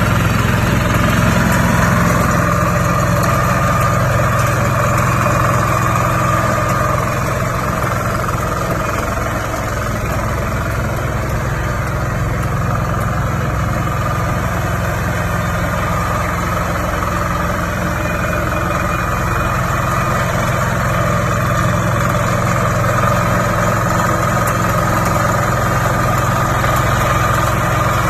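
Engine of a small ride-on combine rice harvester running steadily, with a high whine that fades around the middle and comes back.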